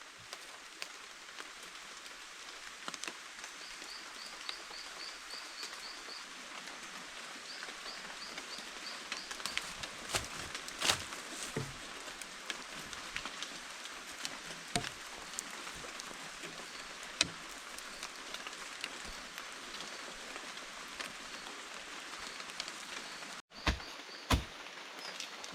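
A steady hiss of rain with scattered drips and taps. A bird calls in quick runs of short high notes about four seconds in and again near eight seconds.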